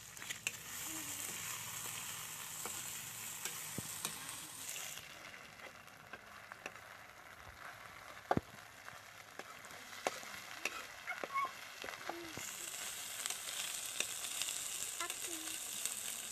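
Locusts sizzling as they are stir-fried in oil in a metal kadai, a spatula scraping and clicking against the pan. The sizzle dies down about a third of the way in and comes back strongly near the end.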